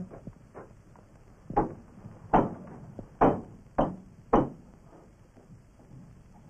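A series of five sharp knocks or blows, spaced a little under a second apart, with a few fainter taps before them.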